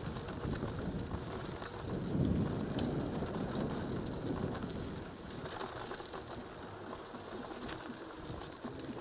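Wind rumbling over a helmet-mounted camera's microphone on a cross-country mountain bike running down a dirt and gravel track, with tyre noise and scattered clicks and rattles from the bike. It swells about two seconds in, then eases off.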